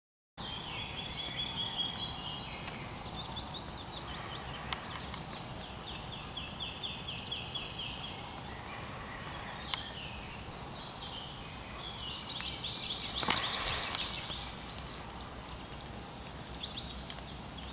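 Woodland songbirds singing: repeated trills of quick, high notes, loudest in a run of falling notes about twelve seconds in. A sharp click about thirteen seconds in.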